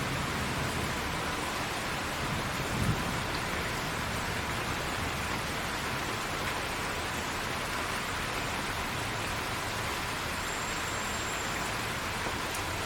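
Steady heavy rain falling, an even hiss, with one brief low thump about three seconds in.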